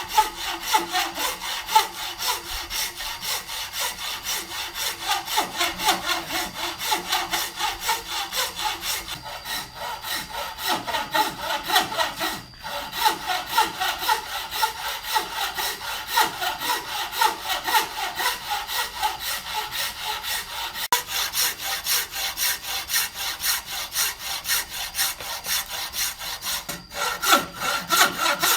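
Hand saw cutting through wood in quick, even back-and-forth strokes, about three a second, with a couple of brief pauses.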